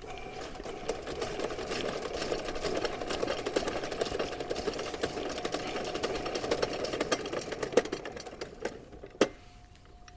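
Electric sewer snake spinning its 5/8-inch cable forward down a main drain line: a rapid, steady clattering rattle that drops away about nine seconds in.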